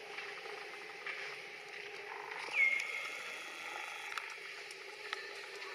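Baby macaque giving one short, high-pitched call about two and a half seconds in, sliding slightly down in pitch and held for about half a second, just after a brief buzzy sound. A few faint clicks are heard against a steady outdoor background.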